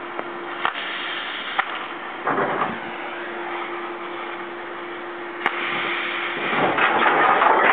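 Metal clanks from a ship's anchor windlass as its brake is worked, over a steady hum. In the last second or so the anchor chain starts running out over the windlass, a loud rising rattle.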